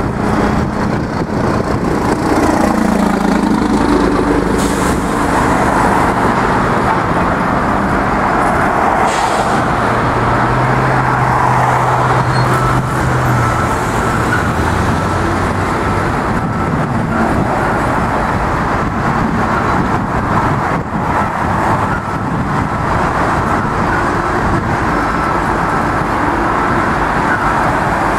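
Steady road traffic: motor vehicles passing close by, a constant tyre hiss with a low engine hum that swells and fades as each one goes past.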